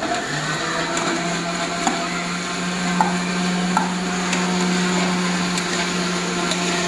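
Steady low machine hum, stepping up slightly about a second in, with a few light clinks and scrapes as cooked rice is tipped from one large aluminium pot into another.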